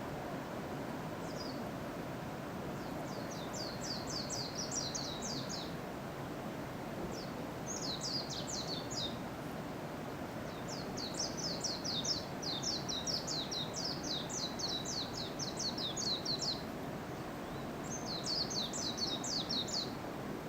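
A small wild songbird singing in four phrases of rapid, high, down-slurred notes. The longest phrase is in the middle and lasts about five seconds. A steady low rushing noise runs beneath it.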